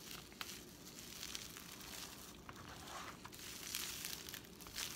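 Faint crinkling and rustling of plastic cling wrap as a wrapped log of raw ground pork is rolled back and forth by hand on a silicone mat, pressing the air out.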